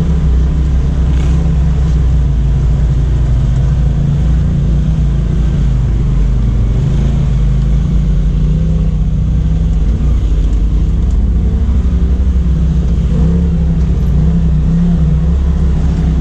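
Side-by-side UTV engine running steadily at about 4,000 rpm, heard from inside the open cab as the machine drives slowly along a rough dirt trail.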